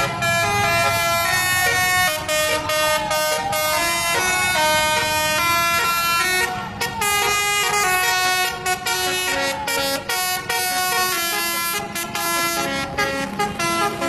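Bus telolet horn, a set of air horns played as a quick tune of short stepped notes, sounding without a break as the coach passes, with its engine running underneath.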